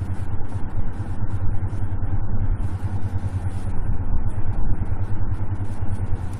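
A steady low hum with a rumbling background noise under it, unchanging throughout.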